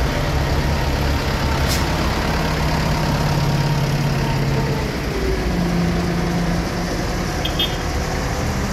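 Mercedes-Benz MB trac tractors' diesel engines running steadily as the tractors drive slowly past, one passing close by, with the engine note shifting about halfway through.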